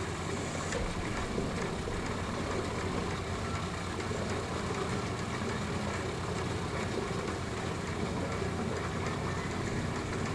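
A steady low mechanical hum under a constant background noise, unchanging throughout.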